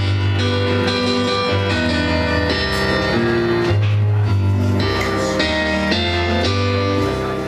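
Live band playing an instrumental passage, a keyboard among the instruments, with a prominent low bass line moving under sustained notes.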